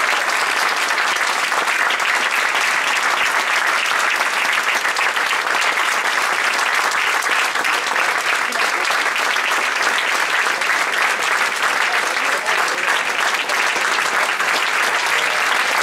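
Theatre audience applauding at the curtain call, a dense clapping that holds at a steady level.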